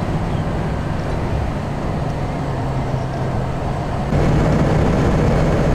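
Ford Econoline van cruising at expressway speed, heard from inside the cab: a steady drone of engine and road noise with a low hum. It gets louder about four seconds in.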